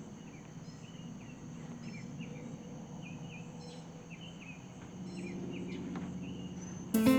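Outdoor ambience with small birds chirping: many short, high, falling chirps over a faint low hum. Acoustic guitar music comes in near the end.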